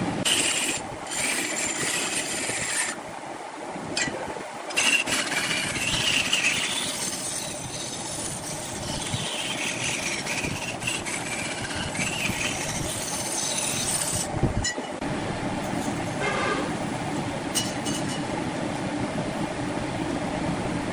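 Large wood lathe running with a steady hum while a long-handled gouge cuts the spinning red wood blank, the scraping of the cut coming and going in several passes. A single short knock past the middle.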